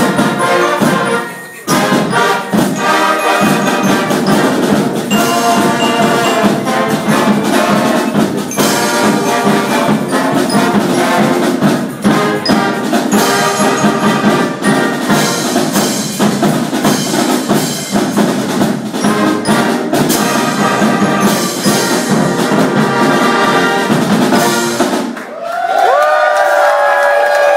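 A band of brass and percussion playing a loud piece, which ends abruptly about 25 seconds in; the crowd then breaks into cheering and whooping.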